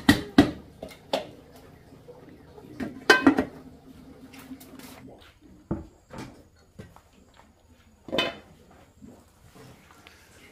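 Clanks and knocks of a large metal cooking pot and its lid, with a wooden stirring paddle knocking and scraping against the pot. The sharp knocks are scattered, some ringing briefly, with the loudest cluster about three seconds in and another near the end.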